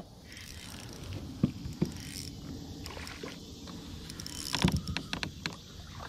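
Spinning reel being cranked to bring in a small hooked fish, with soft gear whirring from the reel and a few sharp clicks and knocks, a pair about a second and a half in and a cluster around five seconds in.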